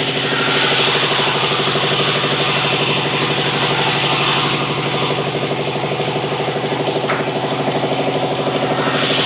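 Sawmill running: a steady engine hum, with a hissing saw noise on top that eases off about four seconds in and swells again near the end.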